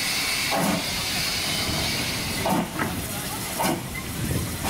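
Steam hissing steadily from a BR Standard Class 2 2-6-0 steam locomotive, broken by a few short, louder, lower-pitched bursts.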